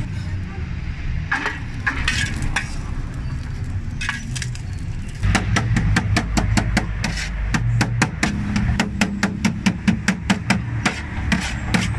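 Cleaver chopping cooked pig's head meat on a steel tray: a few scattered knocks, then from about five seconds in a fast, even run of chops, several a second.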